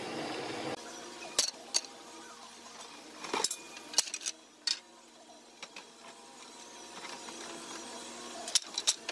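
A drill press's hole saw cutting into wood, which stops abruptly within the first second. Then comes a scatter of sharp wooden knocks as the cut pickets are handled and knock against each other, two of them close together near the end.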